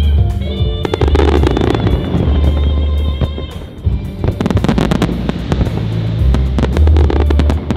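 Fireworks display: clusters of rapid bangs and crackling from aerial shells about a second in, around the middle and near the end, over loud music with a heavy steady bass.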